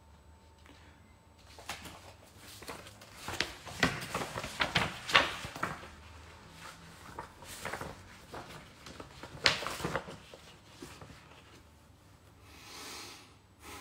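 Handling noise from a smartphone held close to the microphone: an irregular run of clicks, taps and knocks, loudest about five and nine seconds in, then a brief hiss near the end.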